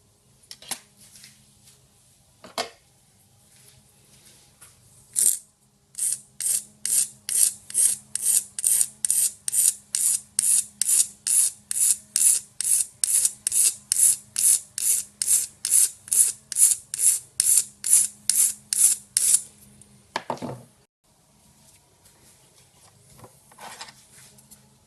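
Hand file rasping in quick, even strokes, about two and a half a second for some fourteen seconds, trimming small pins down to length. A few light clicks come before the filing and a single knock after it.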